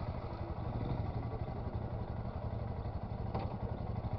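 Royal Enfield Himalayan single-cylinder motorcycle engine running steadily, its exhaust pulses coming evenly with no change in speed.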